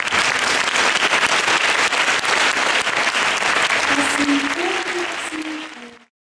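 Audience applauding, a dense patter of many hands clapping that thins slightly near the end and cuts off abruptly about six seconds in.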